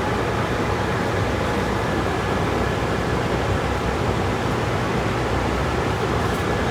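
Steady rushing air noise with a low hum, as from a ventilation fan running.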